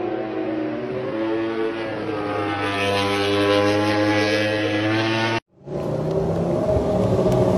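MotoGP race motorcycle engine at full throttle along the straight, its pitch climbing steadily for about five seconds. It cuts off abruptly, and a different steady engine drone follows.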